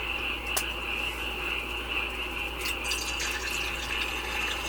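Steady shrill chorus of crickets, with a few faint clicks.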